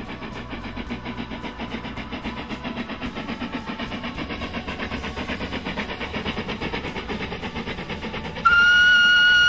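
Narrow-gauge steam locomotive working hard, its exhaust chuffing in a fast, even beat that grows louder as it approaches, then one long steam whistle blast of about a second near the end, the loudest sound.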